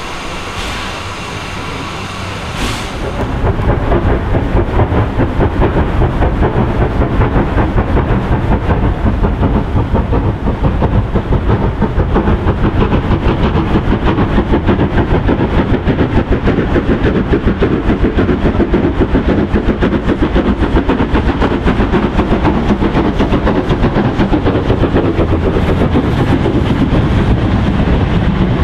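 LNER N7 0-6-2 tank steam locomotive hauling a freight train. About three seconds in it becomes much louder, with a steady run of rhythmic exhaust beats and the wagons rumbling over the rails.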